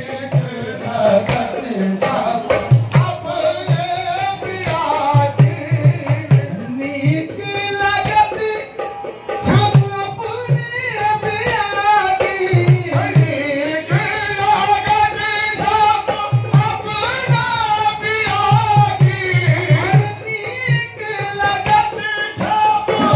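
Qawwali music: a voice singing over a steady hand-drum rhythm.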